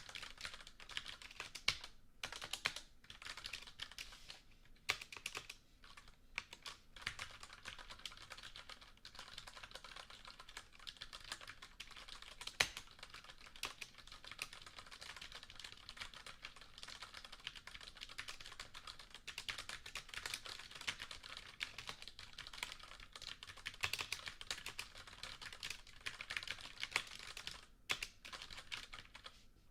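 Typing on a computer keyboard: a fast run of key clicks, broken by a few short pauses.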